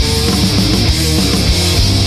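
Stoner metal instrumental in C minor: a heavy electric guitar riff in a loud, dense band mix with sharp hits now and then.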